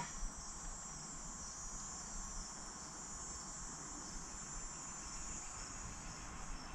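Steady high-pitched chirring of insects in the background. A single sharp click right at the start.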